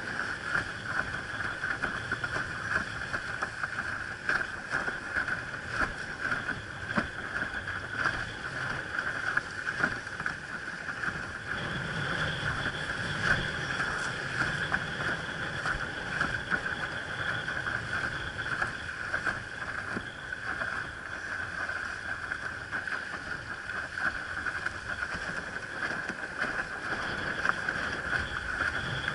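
Water splashing and slapping against a windsurf board sailing over choppy water: a continuous hiss broken by many small crackling splashes.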